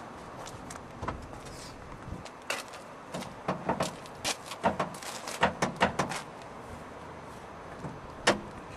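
Irregular sharp clicks and knocks of handling around a car's front end, then a single louder click near the end as the bonnet catch is released.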